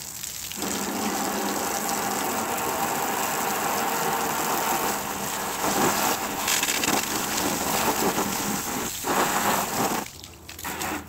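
A hose's jet of water spraying and splashing onto a plastic TV back cover, a steady gushing hiss that dips briefly a couple of times near the end.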